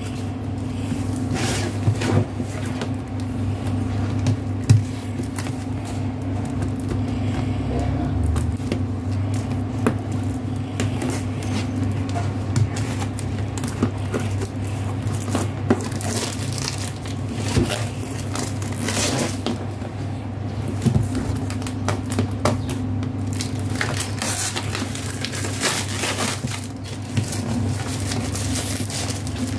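Plastic shrink wrap crinkling and crackling as it is torn and peeled off a cardboard box, with irregular handling clicks, over a steady low hum.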